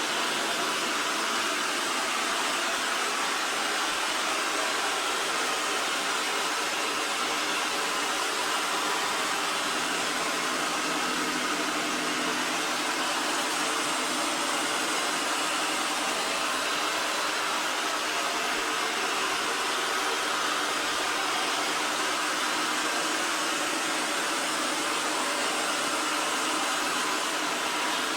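EXTRAVIS V5 PRO robot vacuum running its suction fan while cleaning: a steady, even hiss with a faint steady hum under it.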